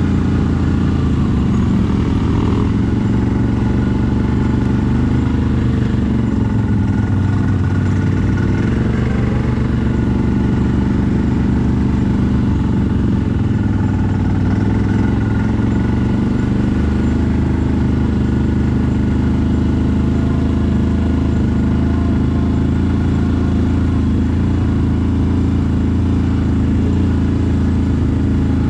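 CFMoto 1000 ATV's V-twin engine running under way while riding. The revs shift up and down in the first third, then hold steady.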